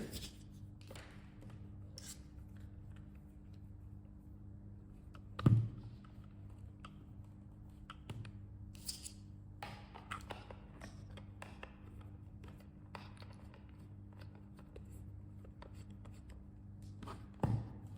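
Small handling noises on a workbench: scattered clicks, scrapes and rustles, with one louder knock about five and a half seconds in, over a steady low hum.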